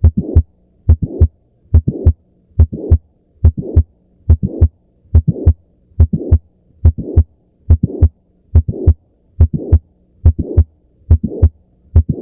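Heart sounds heard through a stethoscope: a steady lub-dub rhythm at roughly 70 beats a minute, each beat a pair of short thumps.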